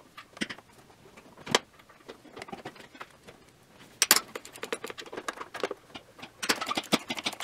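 Ratchet and socket on a long extension working an exhaust manifold nut: scattered metal clicks and clinks, with louder clinks about a second and a half in and about four seconds in, and a quick run of ratchet clicks near the end.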